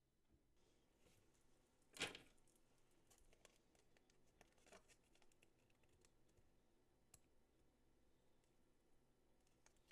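Faint handling of a nail-art sticker sheet: light rustling of the backing sheet and small clicks, with one sharper click about two seconds in.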